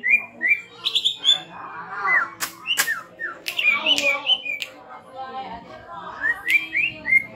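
Cucak ijo (green leafbird) singing a fast, varied song of short gliding whistled notes, broken by several sharp whip-like cracks, the song of a bird packed with imitated calls.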